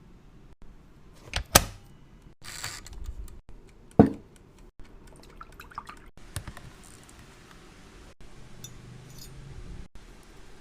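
Small objects being handled: two sharp clacks, one about a second and a half in and a louder one about four seconds in, with a brief rustle between them and a few lighter ticks later.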